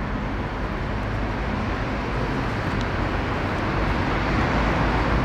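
Steady ambient background noise: an even rumble and hiss with no distinct events.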